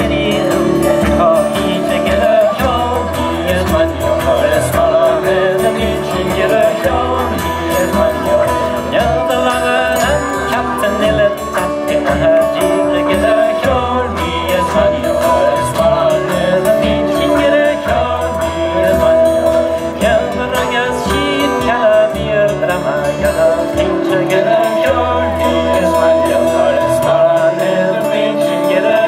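Live folk band playing an instrumental tune: a transverse flute and fiddles carry the melody over bouzouki, acoustic guitar and bodhrán, with a steady bass line underneath that drops out briefly near the end.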